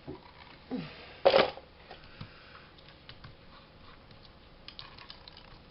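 Paper and fabric being handled and pressed down on a desk: a sharp rustle about a second in, then a scatter of small light clicks and rustles.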